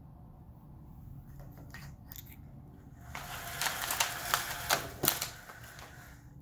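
Horizontal window blinds being pulled up by the cord, with the slats clattering and clicking. A few light clicks come first, then about two seconds of dense rattling with several sharp clacks.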